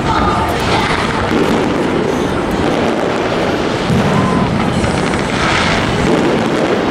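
Aerial fireworks going off in quick succession, their booms and crackle running together into one continuous wash of sound.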